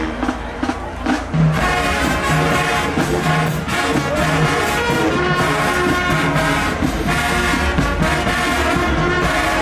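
HBCU marching band's brass section playing loudly, trombones and trumpets on sustained chords; the band swells to full volume about a second in.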